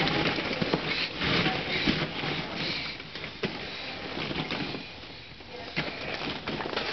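Hollow plastic ball-pit balls clattering and rustling against each other as small children clamber through them, a jumble of many small clicks that eases off briefly about five seconds in.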